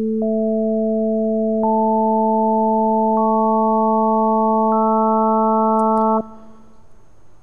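Pure sine tones at whole-number multiples of a low fundamental, sounding together as a steady chord, with a new, higher harmonic joining about every second and a half. They all cut off together about six seconds in.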